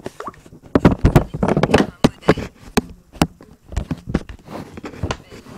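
A Samsung Galaxy S4 Mini stock ringtone or notification tone playing from the phone: an uneven run of sharp clicks and knocks, densest in the first couple of seconds and sparser after.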